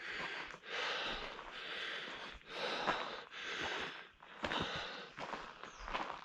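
A hiker's heavy, labored breathing, hard breaths in and out at about one a second: out of breath from climbing at altitude.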